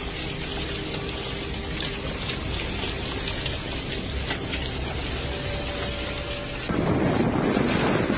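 Steady hiss of heavy rain and running floodwater. About seven seconds in, a cut brings in louder wind rumbling on the microphone.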